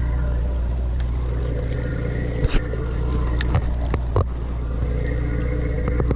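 Sportfishing boat's engines running in a steady low drone, with a few short knocks in the middle.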